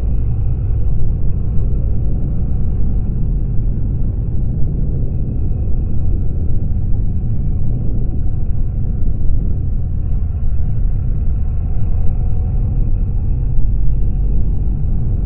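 BMW R1200GS boxer-twin motorcycle riding along at steady speed: a continuous low rumble of engine and wind noise on the camera's microphone.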